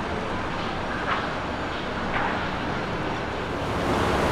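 Engines of a passing motor boat running at low speed, with a steady low hum and the rush of its wake; the noise grows louder near the end.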